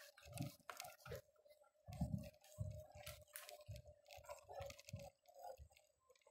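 Faint, muffled thuds at walking pace, about two a second, over a steady hum and scattered clicks. This is what is left of footsteps on a paved path after the Lenovo Mirage VR camera's built-in noise cancellation has stripped out the background sound.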